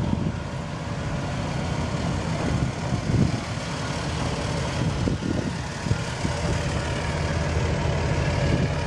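Chevrolet 454 (7.4-litre Vortec) V8 of a 1998 Silverado 3500 dually idling steadily.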